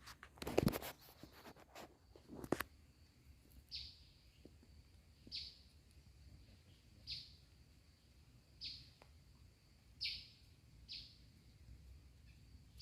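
A bird repeating a single short, high note that falls in pitch, about once every second and a half. In the first two seconds or so there are a few sharp knocks or rustles close by.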